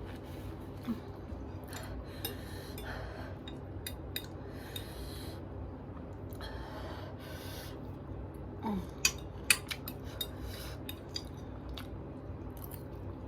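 Eating from a bowl of noodles: a utensil clicking and scraping against the dish, with a few sharper clinks about nine seconds in.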